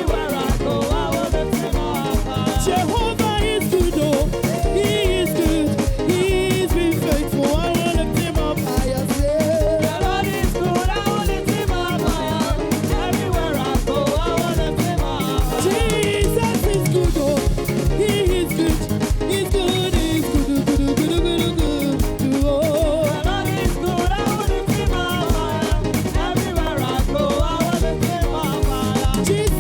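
Upbeat live church praise music: a band with a steady drum beat under singing voices.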